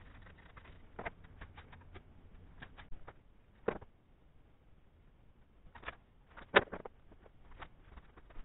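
Scattered light clicks and taps of tools and materials being handled on a wooden workbench, with two sharper knocks, about four seconds and six and a half seconds in.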